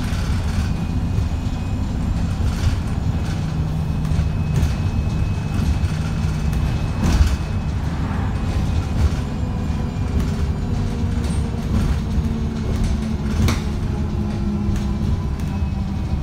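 Inside an ADL Enviro350H hybrid bus under way: the engine and drivetrain drone steadily, shifting in pitch, with body rattles and a couple of sharp knocks about 7 and 13 seconds in. The engine is one the uploader calls unhealthy and being thrashed.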